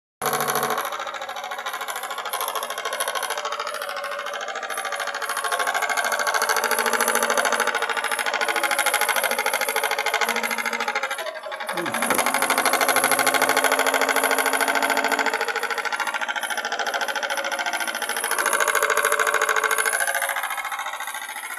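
Microcosm twin-cylinder live steam engine running fast under steam: a rapid mechanical beat over a steady hiss. It swells and eases several times, with a brief drop about halfway through.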